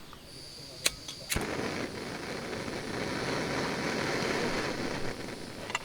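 Two sharp clicks about a second apart, then a steady rushing hiss that grows slightly louder, and a light metal clink at the very end.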